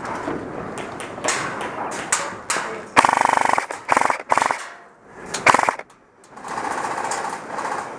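Airsoft electric guns firing full-auto: a loud rapid rattling burst about three seconds in, a shorter one about five and a half seconds in, and fainter continuous fire near the end.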